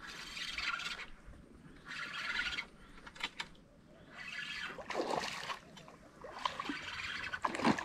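Spinning reel being wound in about four short spells of roughly a second each, with a few brief clicks between them, as a hooked snakehead is played and reeled in.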